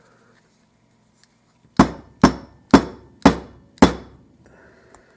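Five sharp knocks about half a second apart as the Abus 83/45 padlock is struck to free its tight-fitting cylinder.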